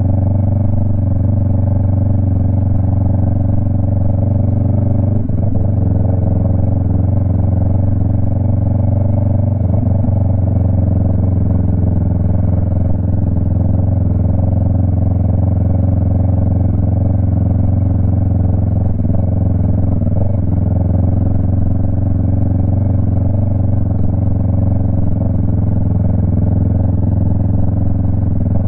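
Yamaha MT-03 motorcycle with a Jeskap aftermarket exhaust and its dB killer removed, engine running at a steady, unchanging pitch as the bike cruises.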